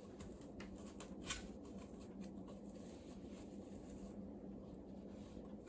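Hemp rope rubbing and rustling with a few light clicks as it is handled on a cat scratching pole, over a low steady hum.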